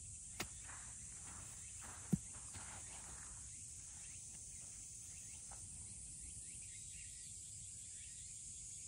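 A golf iron strikes the ball with a short, crisp click about half a second in, and a smaller dull knock follows about two seconds in. Behind them runs a faint, steady, high insect chorus.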